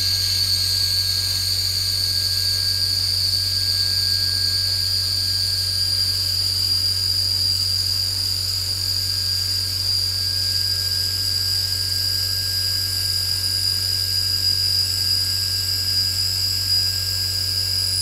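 Solid carbide end mill (Kennametal HARVI I TE, 3/4 inch) cutting A36 steel in a CNC machine: a steady high-pitched whine with a low hum underneath, holding even throughout.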